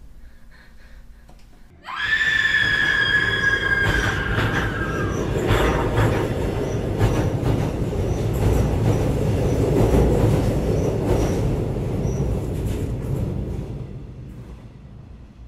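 Passenger train passing on an elevated track: it comes in suddenly about two seconds in with a high screech of wheels on rail that slides down over a few seconds, then runs on as a steady rumble with a regular clack of wheels over rail joints, fading away near the end.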